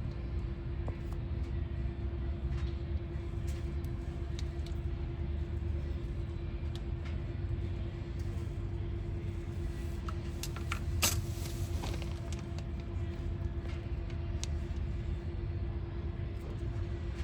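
A running motor: a steady low rumble under a constant hum that holds one pitch, with scattered small clicks and one sharper click about eleven seconds in.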